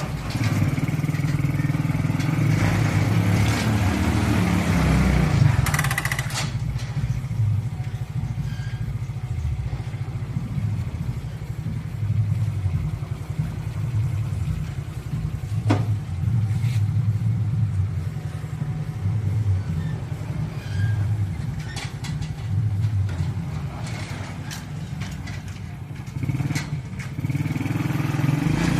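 Suzuki 125cc motorcycle engine running in a small four-wheeled truck, louder for the first few seconds and then settling lower and uneven.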